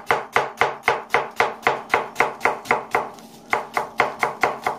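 Kitchen knife dicing an onion on a plastic cutting board: quick, evenly spaced chops at about four a second, with a brief pause about three seconds in.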